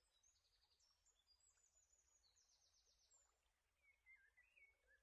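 Very faint birdsong: high chirps and quick trills, then a lower warbling phrase near the end.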